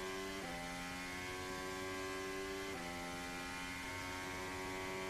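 Onboard engine note of a Williams Formula 1 car's V6 turbo-hybrid engine, accelerating hard under full throttle and climbing gradually in pitch, broken by two gear changes, about half a second in and near three seconds.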